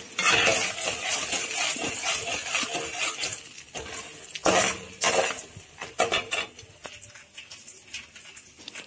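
Chana dal and urad dal sizzling in sesame oil in a metal kadai as they brown, with a metal spoon stirring and scraping the pan and a few sharp clinks against it around the middle. The sizzle fades toward the end.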